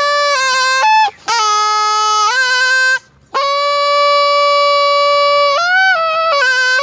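Thai pi, a reed oboe, played solo and loud: a melody of ornamented, gliding notes broken by two short breaks, with one long held note in the middle.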